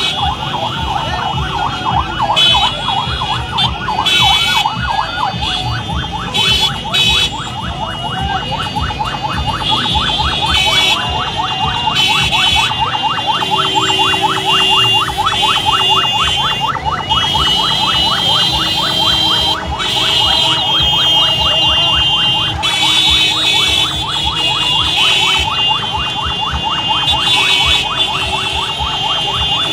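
An electronic vehicle siren sounds throughout. It sweeps up and down fairly slowly at first, then switches to a fast yelp of many cycles a second. High, steady horn-like tones come and go over it.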